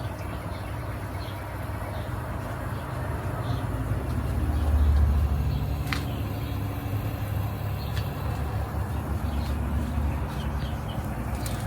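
Miele Meteor 1000 Novotronic washing machine running with a steady low hum and rumble that swells for a moment about five seconds in, with a couple of sharp clicks.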